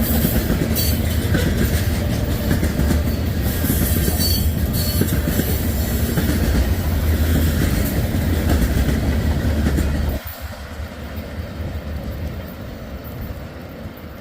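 CSX freight train's cars rolling past, a loud steady rumble with wheels clacking over the rail joints and a few brief high wheel squeals. The heavy rumble drops off abruptly about ten seconds in.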